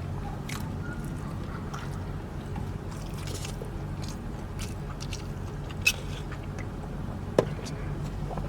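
Close-miked chewing and small wet mouth sounds of a person eating, with two sharp clicks about six and seven and a half seconds in, over a steady low hum.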